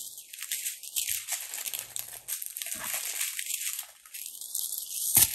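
Small plastic bags of diamond painting drills crinkling and rustling as they are handled, with a sharp tap near the end.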